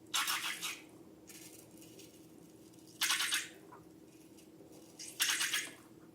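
Slime being squeezed and worked by hand: three short, sticky, crackling squelches, about one every two and a half seconds, over a faint steady hum.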